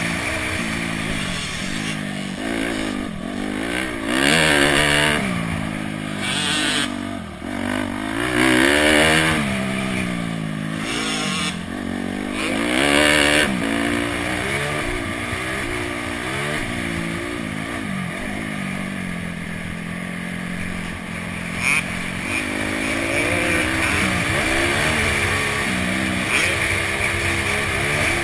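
Honda CRF250X's single-cylinder four-stroke engine revving hard and backing off over and over as the dirt bike is ridden on a motocross track, its pitch climbing and dropping every second or two, then holding steadier in the second half. A brief sharp knock comes about three quarters of the way in.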